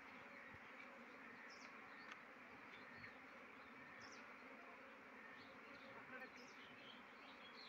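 Faint, steady buzzing of a mass of domesticated honeybees around an opened hive box as its frames are handled.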